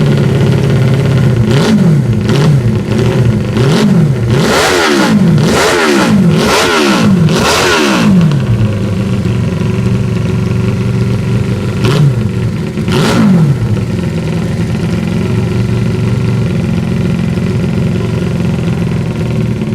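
Norton rotary (Wankel) motorcycle engine, built from drone-engine parts, idling and blipped hard again and again: about eight quick revs that shoot up and drop straight back in the first eight seconds, two more a few seconds later, then a steady idle. It climbs on the revs very fast.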